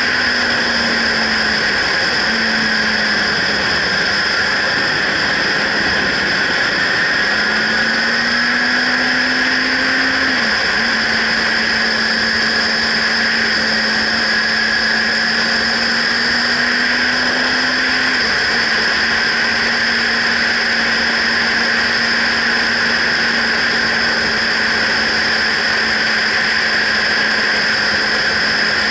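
Motorcycle ridden at road speed, heard from a helmet-mounted camera: a steady rush of wind and road noise over the engine note. The engine pitch rises as the bike accelerates and drops sharply twice, about ten and eighteen seconds in, as the rider shifts up, then holds steady.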